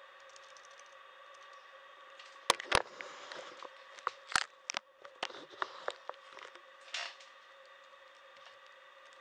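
Irregular sharp clicks and taps close to the microphone, about a dozen between roughly two and a half and seven seconds in, over a steady faint high electronic whine.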